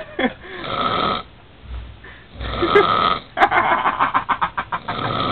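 A man snoring heavily in a deep, intoxicated sleep: loud, harsh snores every second or two, the longest one about halfway through breaking into a rapid fluttering rattle.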